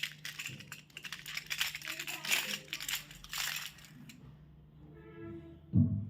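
Crackling, clicking rustle of candy packaging being handled and opened, dense for about four seconds, then fading. A brief loud low thump comes near the end.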